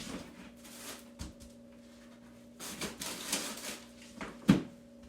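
Kitchen handling sounds: scattered clicks, taps and rustling, with one sharp knock about four and a half seconds in, over a faint steady hum.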